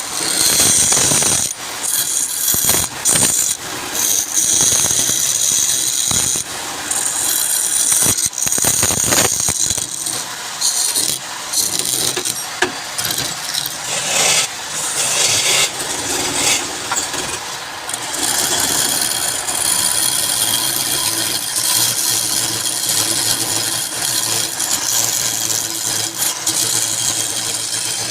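Wood lathe running while a turning tool cuts the spinning wood. The cut breaks off and starts again several times in the first ten seconds, then goes on steadily.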